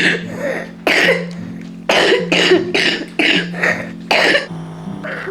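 A child coughing repeatedly, the cough of a cold: about eight coughs, two spaced a second apart and then a quick run of six, over soft background music.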